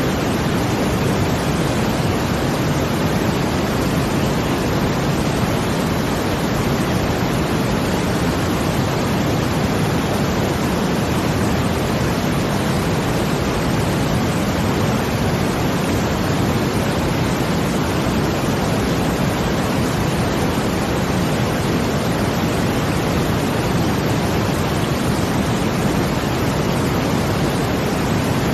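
Steady brown noise blended with a rushing-water sound, deep and even with no swells or breaks.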